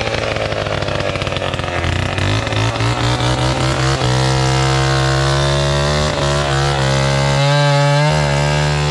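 Gasoline chainsaw running at high revs, cutting into a coconut palm trunk; the engine note holds steady with small wavers in pitch.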